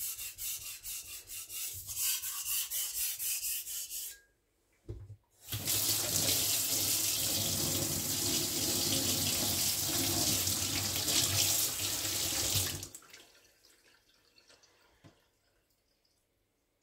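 Quick rubbing strokes of a Victorinox Chinese cleaver on a whetstone, about three a second, for about four seconds. After a short pause a kitchen tap runs into a stainless steel sink for about seven seconds and then shuts off.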